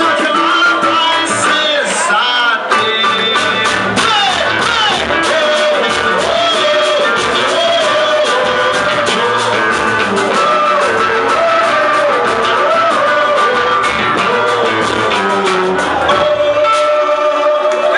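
Music: a voice singing a melody over guitar and a dense, quick percussion beat.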